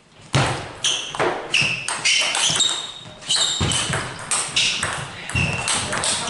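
Table tennis rally: the ball hitting the rackets and the table in quick alternation, two to three sharp clicks a second, each with a short ringing tone, starting about a third of a second in.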